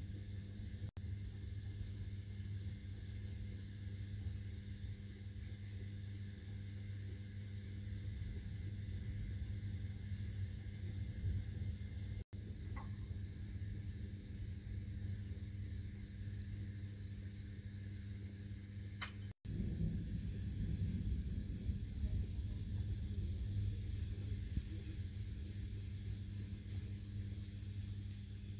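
Crickets trilling steadily at a high pitch over a low rumble, which grows stronger after about twenty seconds. The sound drops out for an instant three times.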